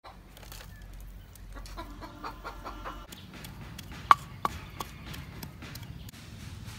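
Chickens clucking in short repeated calls during the first half. Then a wooden pestle strikes a clay mortar three times in quick succession, about a third of a second apart, the first knock the loudest.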